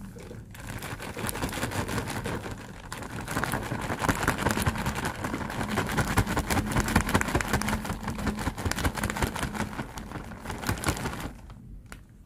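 Plastic bag crinkling and rustling as wheat flour is poured from it into a plastic container, a dense crackle that stops about a second before the end.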